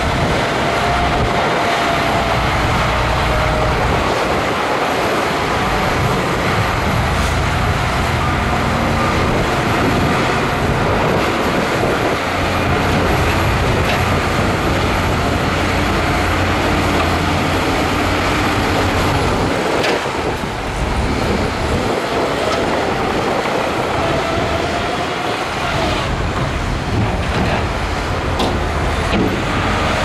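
Heavy diesel engines of a tipper dump truck and a Shantui crawler bulldozer running steadily under load, with the rumble and clatter of dirt and rock sliding out of the raised dump body.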